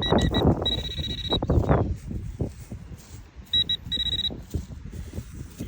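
Metal detector beeping in quick pulses, then a short steady tone, and again briefly about three and a half seconds in, signalling metal close by in the ground. Wind buffets the microphone, with scraping from digging in hard dirt.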